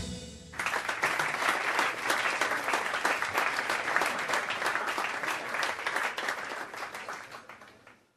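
Audience applauding, a dense steady clapping that starts about half a second in as the last notes of the song die away, then fades out near the end.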